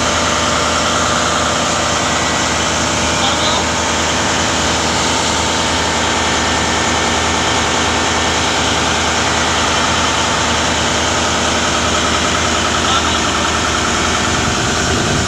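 Turbocharged engine running steadily at a constant speed, a loud, even machine noise with no changes in pitch.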